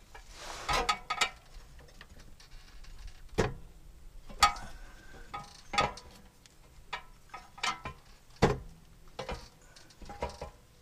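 Irregular sharp metallic clicks and knocks, some with a brief ring, as a soaped rubber exhaust hanger is worked and pried off its metal hanger rod under a car.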